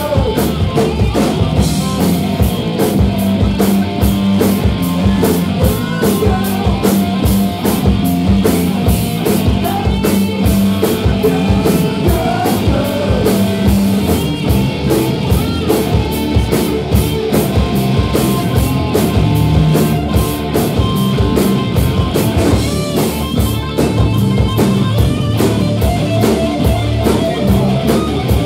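Live hard rock band playing: electric guitars, bass and a drum kit keeping a steady beat, with voices singing at the microphone.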